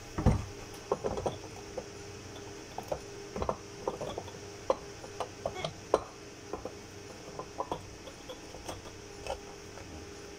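Handling noise from a rechargeable battery pack being fitted into an FA313 syringe pump: irregular clicks, taps and plastic knocks as the pack's wire connector is plugged into the battery compartment, over a steady faint hum.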